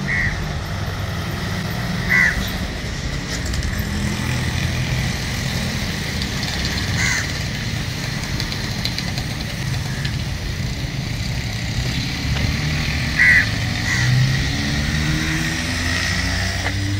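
Crows cawing, about four short single caws spread out, over a steady low rumble of outdoor ambience.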